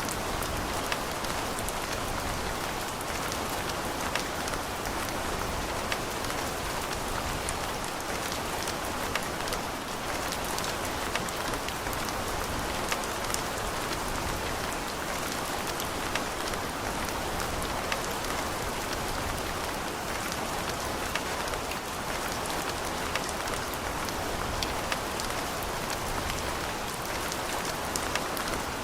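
Steady rain falling, with a constant hiss and many small scattered drop ticks.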